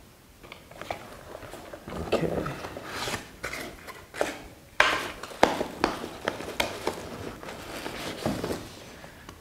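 Cardboard box and its packing being handled and rummaged through: rustling with a string of sharp clicks and knocks.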